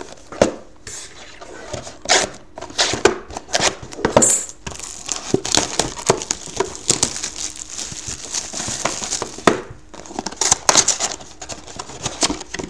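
Plastic shrink wrap being torn and peeled off a sealed cardboard trading-card box, crinkling and crackling irregularly throughout.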